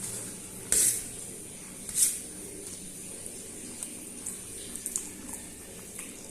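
A person eating Maggi instant noodles: two short, loud wet slurps near the start, followed by scattered small chewing and mouth clicks.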